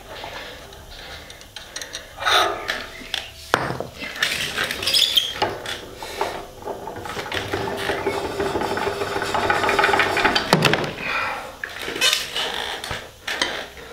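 Broken drive shaft of a Welger SM4 disc mower's cutter bar being drawn out through its bearings: a long metal-on-metal scrape as it slides, stiff going, with a sharp metal knock a few seconds in and another just before the end.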